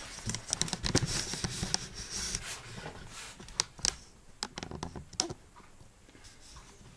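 Rustling and scattered sharp clicks and knocks from a camera being handled and moved. The rustling is heaviest in the first couple of seconds, and the clicks thin out towards the end.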